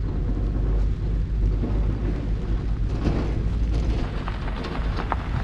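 Wind buffeting the microphone in a steady low rumble, with a few sharp crackles near the end.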